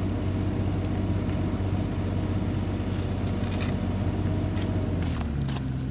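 Mini excavator's diesel engine running steadily as it lowers a boulder on a strap. Its note drops about five seconds in, and a few short clicks and scrapes come in the last couple of seconds.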